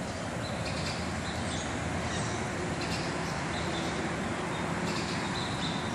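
Steady low rumbling background noise, with brief faint high chirps now and then.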